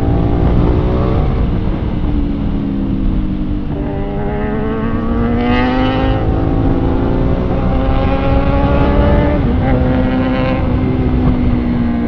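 Sport motorcycle engine accelerating on the road, its pitch climbing steadily through the middle and dipping briefly near the end, under heavy wind rumble on the microphone.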